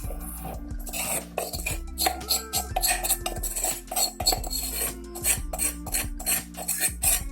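Kitchen utensils clinking and scraping against a bowl in many quick, irregular knocks while flour is being scooped out.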